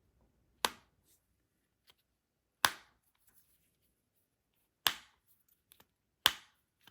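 AirPods Pro charging-case lid, fitted in a silicone pager-style cover, flipped open and snapped shut: four sharp clicks about two seconds apart.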